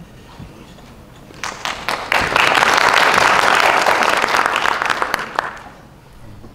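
Audience applauding: a few scattered claps about a second and a half in, quickly swelling to full applause that fades away after about four seconds.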